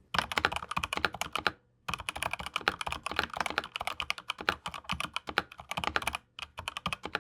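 Fast typing on a Razer BlackWidow V4 Pro mechanical keyboard with Razer Yellow linear switches: a dense run of keystroke clacks, broken by a short pause about one and a half seconds in and a brief one near the end.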